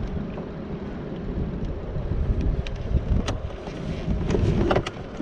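Wind rumbling on the microphone over the wash of water around a kayak, with a few sharp clicks in the second half.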